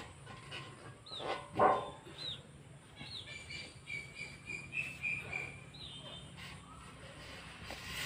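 Small birds chirping in the background: several short chirps that sweep downward, and a string of short high notes near the middle. One louder, brief sound stands out about one and a half seconds in.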